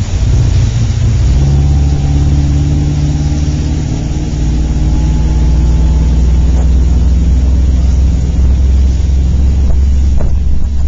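Motorboat engine running at speed, a loud steady drone, with wind on the microphone and water rushing past the hull.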